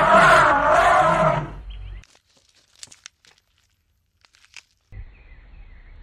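Elephant calling: one loud call with a wavering pitch that fades out about two seconds in. Then near silence with a few faint clicks, and a faint low hum comes in near the end.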